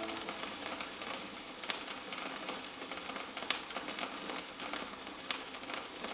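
Gap between tracks on a vinyl record: faint surface hiss and crackle, with a sharp click about every two seconds.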